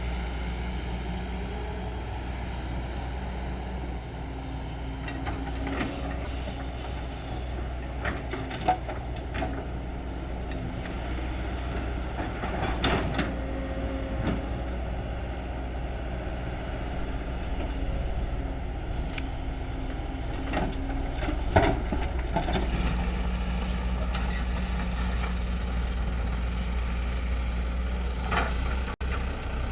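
Kobelco SK200 hydraulic excavator's diesel engine running steadily under load while it digs and loads soil, with scattered knocks and clanks from the working bucket and arm.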